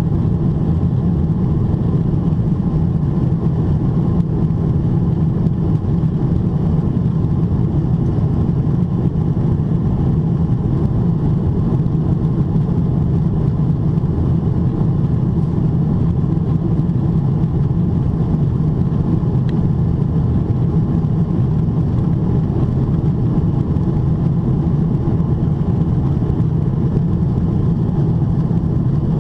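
Steady low cabin noise inside a Boeing 777-300ER climbing: its GE90-115B engines at climb thrust and the airflow over the fuselage, heard through the cabin window.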